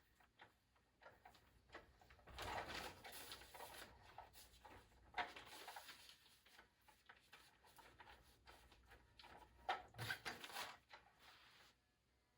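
Faint scattered rustling and light knocks, with a louder stretch of rustling about two seconds in and another near ten seconds in.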